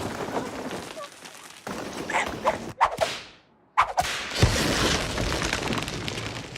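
Cartoon slapstick sound effects: whooshes and a sharp whip-like crack, a short drop to silence about three seconds in, then a sharp strike and a heavy thump about four and a half seconds in.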